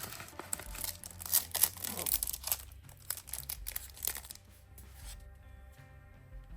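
Card packaging torn open and crinkled by hand for the first four seconds or so, over soft background music.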